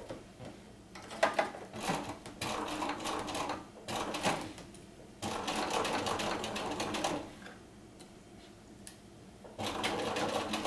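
Bernina sewing machine stitching in several short runs with pauses between them, sewing a small tack of a few stitches through a knit t-shirt neckband seam.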